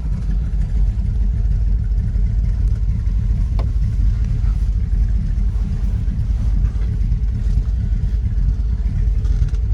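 1973 Jensen Interceptor's Chrysler V8 idling steadily with a low rumble, with a faint click about three and a half seconds in.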